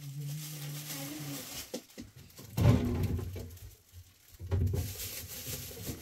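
Food and bags being handled and loaded into a refrigerator, with two dull knocks, the louder one about two and a half seconds in and another about four and a half seconds in.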